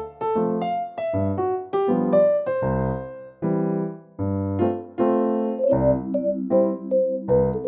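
Background music: a keyboard playing a melody over changing chords.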